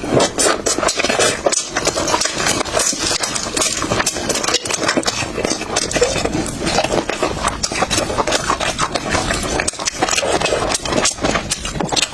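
Close-miked eating sounds: chewing with a rapid, continuous run of wet clicks and crackles.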